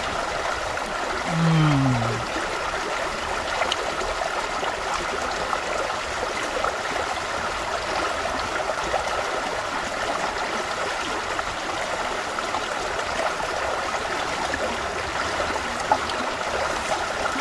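Shallow rocky river running over stones, a steady rush of water. About a second and a half in, a short voice-like sound falls in pitch.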